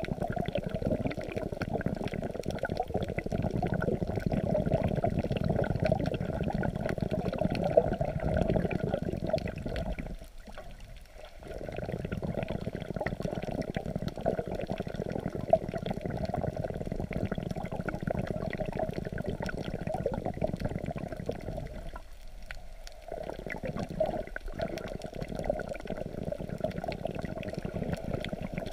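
Muffled rushing and sloshing of seawater heard underwater just below the surface, as waves move the water around the swimmer. The noise drops away briefly twice, about a third of the way in and again about three quarters through.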